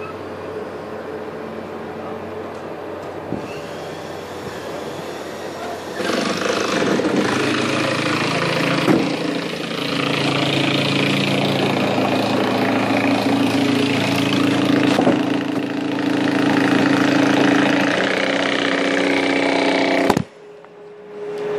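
Mobile crane's diesel engine running steadily, then revving higher about six seconds in as it hoists a prefabricated wall panel. The sound cuts off abruptly near the end.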